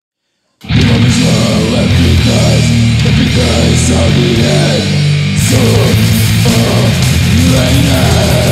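A short silence, then loud old-school death metal kicks in about half a second in: distorted electric guitars, bass and drums played at full tilt.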